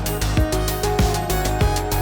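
Background music with a steady beat: a low drum hit a little under twice a second under a bass line and held instrumental tones.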